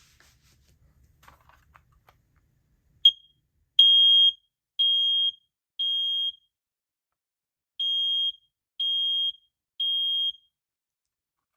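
First Alert 3120B smoke alarm sounding on test: a short chirp, then its high-pitched horn beeping in the temporal-three evacuation pattern, three half-second beeps about a second apart, a pause, and three more.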